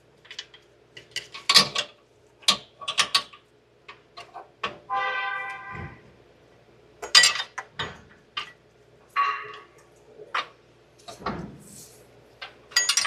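Hand tools and bolts clinking and knocking against metal in a series of irregular sharp taps, with a brief squeak about five seconds in, while a bolt is worked into a water pump bracket that won't line up.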